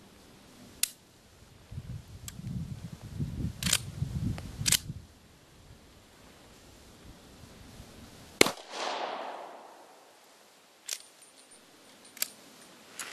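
A single pistol shot from a Steyr Hahn M1912 about eight seconds in, the loudest sound, with an echo trailing after it. Sharp metallic clicks and handling noise come before and after it. The pistol is firing light reloads that appear too weak to cycle the action fully.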